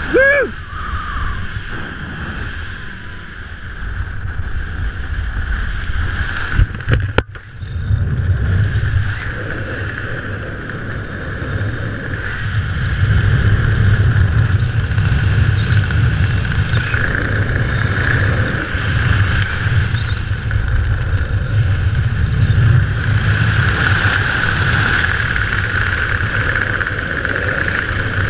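Airflow buffeting a helmet-mounted action camera's microphone under an open parachute canopy: a steady rumble with a constant hiss above it, growing louder about halfway through. There is a single sharp click about seven seconds in.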